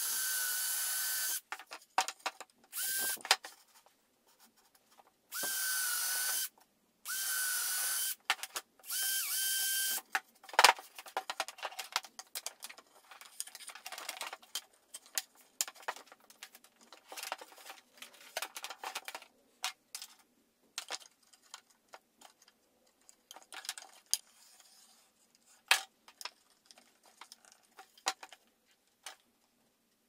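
Handheld power drill boring holes in a wooden board, run in about five short bursts in the first ten seconds, each starting with a quick rise in motor pitch. After that come scattered sharp clicks and knocks of wood and parts being handled on a workbench.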